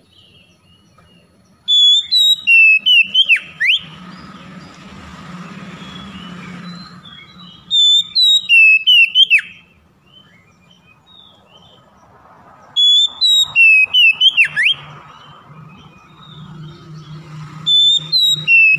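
Oriental magpie-robin singing: the same short phrase of loud whistled notes, each ending in a sharp downward sweep, comes four times, about every five seconds. A fainter low hum and hiss fill the gaps between phrases.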